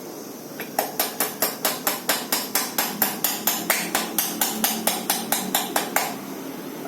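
Hammer striking in a quick, even run of about two dozen sharp blows, roughly four to five a second, that stops about a second before the end.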